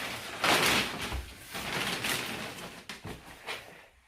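Rustling and handling of gift packaging: a few brushing swishes with small knocks and clicks, growing fainter near the end.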